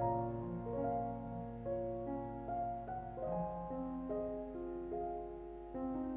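Background piano music: a melody of single notes moving up and down over lower held notes.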